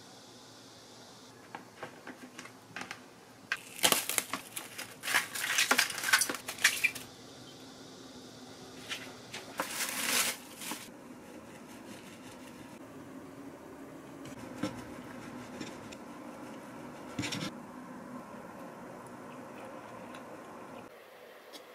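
Plastic cling wrap crinkling and crackling as it is pulled and pressed around a sandwich, in two spells, about four seconds in and again around ten seconds. Light taps and handling knocks of bread and container on a wooden board around them.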